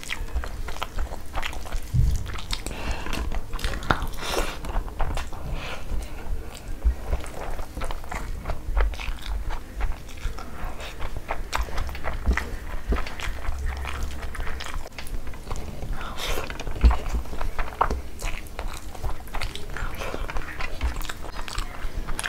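Close-miked chewing and lip smacking of a mouthful of rice and butter chicken, with wet squelches of fingers working rice into the gravy on the plate. The chewing is a dense, irregular run of small wet clicks.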